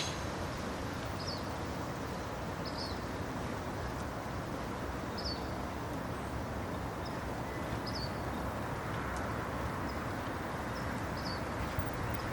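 Steady outdoor background noise, with short high chirps repeating every one to two seconds.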